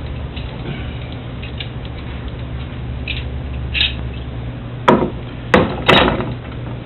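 Clamps and a wooden router guide jig being handled and set on a workpiece: scattered light clicks, then a few sharp wooden knocks in the last two seconds, over a low steady hum.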